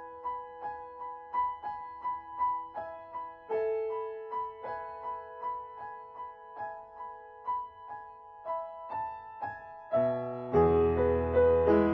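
Background piano music: a melody of separate, evenly paced notes, about three a second, that turns fuller and louder with low chords near the end.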